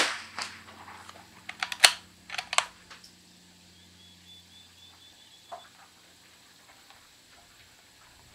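A single .22 LR shot from a Christensen Arms Ranger 22 bolt-action rimfire rifle right at the start. About a second and a half later comes a quick run of sharp metallic clicks as the bolt is worked to eject the spent case and chamber the next round.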